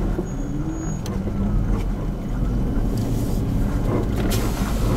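Hummer 4x4's engine running steadily at low revs, a constant low drone with a few faint knocks.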